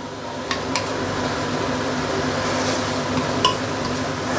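Sweet potato leaves frying in a stainless steel pan, stirred and scraped with a wooden spatula over a steady sizzle. A few sharp knocks of the spatula against the pan, each leaving a short metallic ring.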